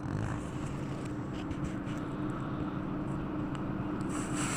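Steady low background hum, with a few faint light scratches.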